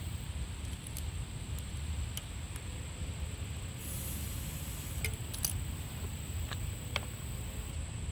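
Bicycle tire being worked by hand back onto its rim, giving a few scattered light clicks and taps over a steady low rumble.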